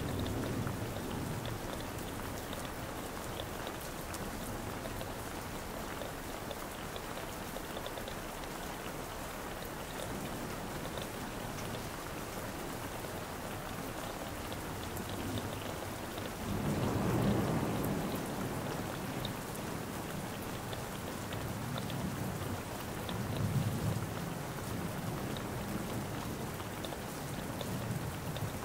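Steady rain falling on surfaces. Low rumbles swell up about 17 seconds in and briefly again near 24 seconds.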